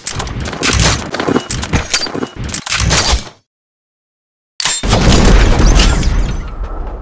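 Gunshot sound effects for an animated logo sting: a rapid string of sharp shots, two or three a second, that stops about three seconds in. After a second of silence comes a deep boom with a long rumble that fades out.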